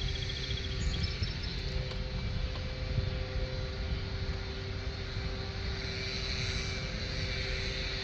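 A vehicle engine idling steadily with a low rumble and a constant hum.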